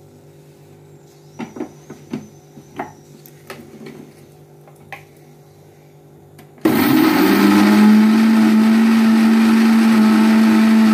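A few light knocks from handling the mixer jar, then, about two-thirds of the way in, an electric mixer grinder switches on and runs loudly and steadily, its motor spinning up briefly before settling, grinding grated taro root, coconut and green chillies into a paste.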